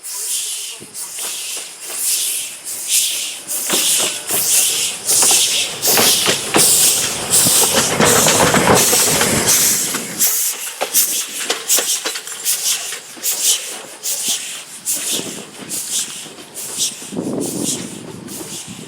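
Steam locomotive working, its exhaust going in evenly spaced hissing chuffs about two a second, loudest in the middle stretch.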